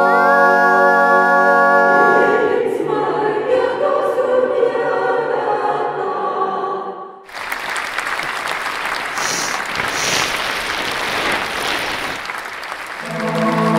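Several voices singing together in harmony, first a held chord, then a short choral passage. About seven seconds in the singing gives way abruptly to an audience applauding for several seconds, and a held sung chord comes back near the end.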